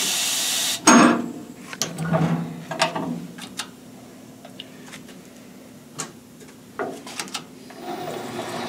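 Metalworking machine being handled: a short burst of hiss at the start, then scattered metal clicks and knocks over a steady low hum, with a steadier machine noise coming in near the end.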